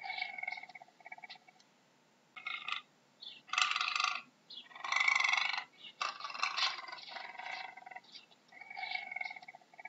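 Puma (cougar) calling: a string of short, high-pitched cat cries with pauses between them, the loudest two in the middle.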